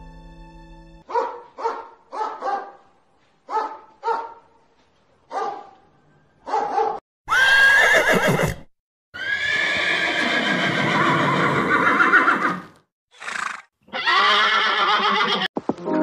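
Horses neighing: a string of short whinnies, then from about seven seconds in several long, loud neighs.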